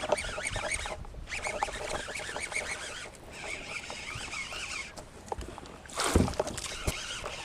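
A baitcasting reel being cranked fast and water splashing as a hooked bass is fought up to a kayak, with a louder short burst about six seconds in.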